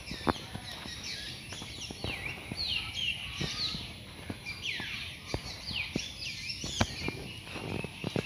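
Several birds chirping and calling over one another, many quick down-slurred notes, with scattered light clicks.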